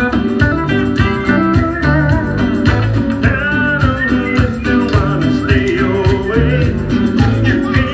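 Upbeat pop music with a steady beat and guitar lines, perhaps with some singing.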